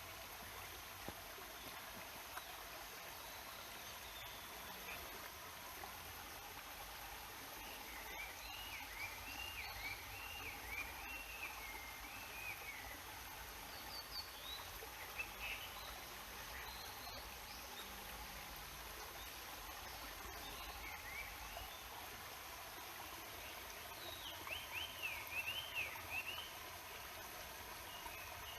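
Steady rush of a stream, with a songbird singing quick warbling phrases over it, strongest about eight to thirteen seconds in and again near the end.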